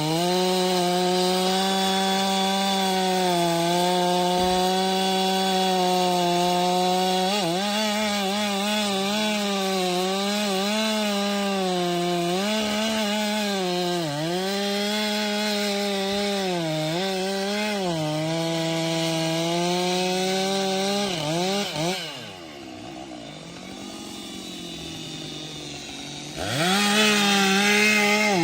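Stihl MS 462 C-M two-stroke chainsaw running at high revs while cutting firewood, its pitch dipping again and again as the chain loads up in the wood. About two-thirds of the way in it drops to idle for a few seconds, then revs back up sharply near the end.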